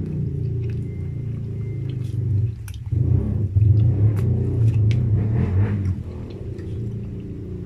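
Close-miked chewing of a cheeseburger, with small wet mouth clicks, strongest from about three to six seconds in, over a steady low hum.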